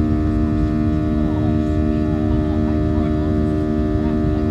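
Steady drone of a Boeing 737-700's CFM56-7B jet engines heard inside the passenger cabin in flight: a low rumble with several steady humming tones over it, and faint cabin chatter underneath.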